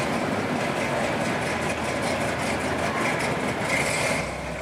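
Engines of classic cars running as they roll slowly past at close range.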